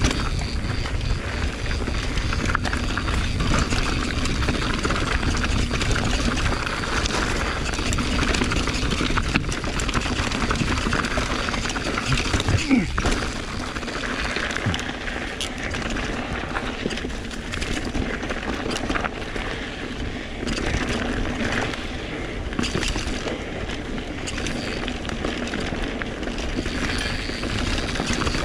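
Mountain bike riding fast down rocky singletrack: a steady rush and low rumble of wind and tyres, with frequent small rattles and knocks from the bike over rocks and roots.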